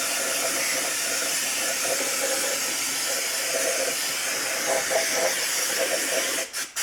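Aerosol can of gasket-sealant remover spraying in a long continuous hiss, with a couple of brief breaks near the end.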